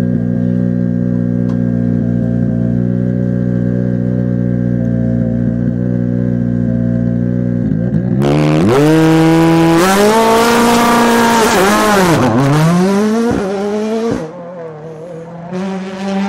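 Ford Fiesta WRC's turbocharged 1.6-litre four-cylinder engine idling steadily, then launching hard about eight seconds in, the revs climbing and dropping through several gear changes. The sound fades near the end as the car pulls away.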